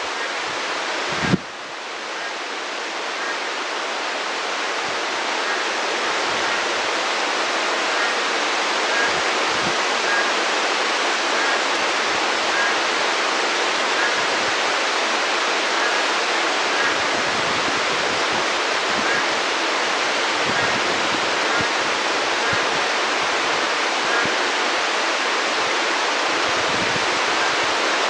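Heavy rain falling steadily, a dense even hiss of rain. A single sharp knock sounds about a second in.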